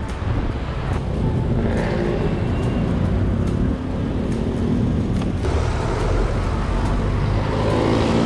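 Road traffic close by: car engines running in slow city traffic right alongside.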